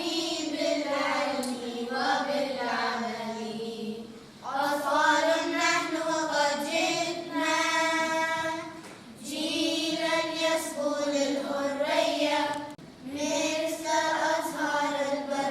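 A group of children singing together, with no instrumental backing, in phrases broken by short pauses about four, nine and thirteen seconds in.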